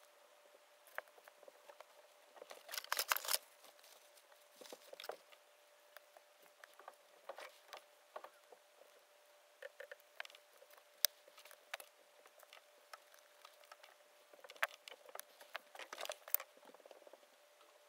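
Small hand tools (pliers, tweezers) and a small bottle being handled and set down on a cloth-covered workbench: scattered light clicks and taps, with two busier bursts of fiddling about 3 seconds in and near the end. A faint steady hum runs underneath.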